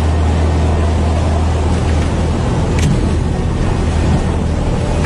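Cessna 172M Skyhawk's four-cylinder Lycoming O-320 engine and propeller at full power, a loud steady drone heard from inside the cabin, as the pilot tries to get airborne after the aircraft veers off the runway. A short sharp tick comes a little before the three-second mark.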